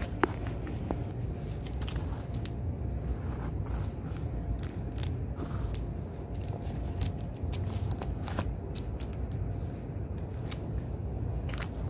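Handling noise: scattered sharp clicks and crackles, as of plastic packaging and a phone being handled, over a steady low rumble.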